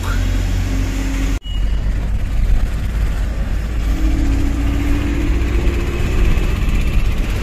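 Tata 1512 truck's diesel engine running on the move, a steady low rumble heard from inside the cab, with road noise over it. The sound drops out for an instant about a second and a half in.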